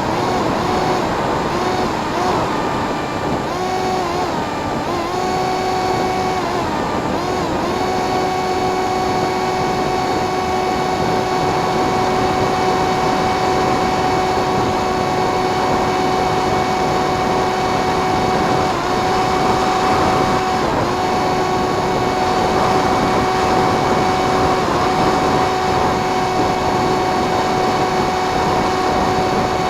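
Motor and propeller of an RC FPV plane whining steadily in flight over a rush of wind and airflow noise, the pitch dipping briefly a few times as the throttle eases off and comes back.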